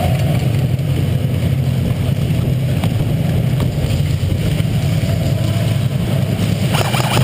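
Steady muffled low rumble picked up by a GoPro Hero HD worn by a moving player, the camera's case carrying handling and body movement, with a couple of faint clicks about three seconds in.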